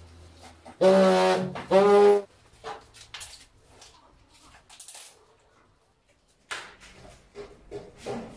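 Handheld tile vibrator with a suction cup buzzing in two short bursts, about a second and two seconds in, settling a large porcelain plank tile into its adhesive. Quieter knocks and scrapes of tile work follow.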